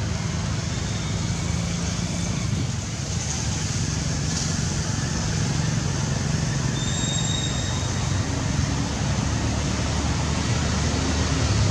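Steady low rumble of outdoor background noise, with a brief high-pitched whistle about seven seconds in.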